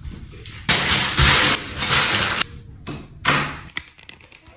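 A hand scrub brush scouring a bathtub: a long stretch of scratchy scrubbing noise of about two seconds, then a shorter burst, with a few light knocks near the end.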